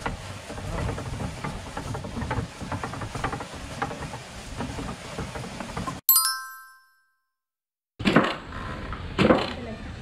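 Wooden ox cart rattling and clicking as it rolls along a rough dirt track. About six seconds in, a bright chime rings out and dies away, followed by a second of silence. Then come two loud wooden thuds about a second apart from a foot-operated rice pounder.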